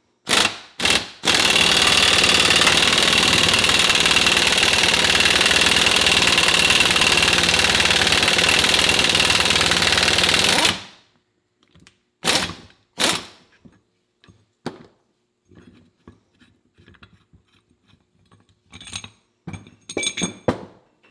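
Impact wrench spinning the screw of a ball joint press: two short blips, then about nine and a half seconds of continuous hammering that stops suddenly, as the lower ball joint is pushed out of a GM 10-bolt front axle's steering knuckle. A few metal clanks follow as the press is taken off.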